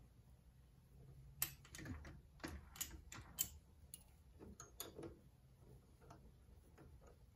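Faint, irregular small clicks and ticks as a T-handle tap wrench is turned by hand, cutting 1/4-20 threads in an aluminum part, over a faint low hum.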